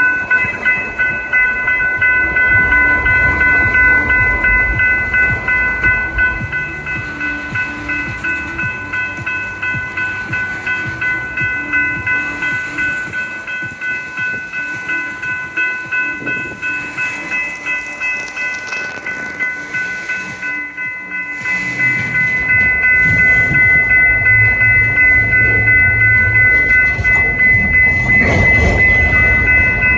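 Freight train cars rolling through a street grade crossing, wheels rumbling and knocking over the rail joints, while the crossing's warning bell rings as a steady high tone. The rumble eases in the middle and comes back louder about two-thirds of the way through.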